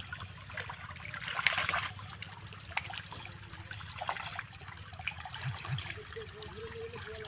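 Shallow muddy water trickling through a narrow channel into a pool, with small splashes of fish moving in the shallows and a louder splash about one and a half seconds in.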